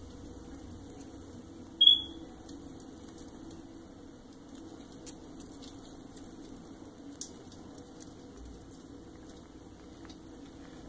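A hamster pattering and scratching about on a paper-covered surface: faint scattered clicks and rustles over a steady low hum. A single short, high chirp sounds about two seconds in, the loudest sound here.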